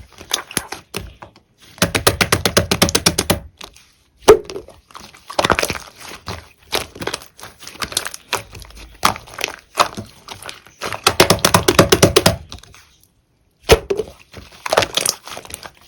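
Black fondant slime being squeezed and pressed by hand, giving rapid runs of small clicks and pops in several bursts, with one sharper knock about four seconds in.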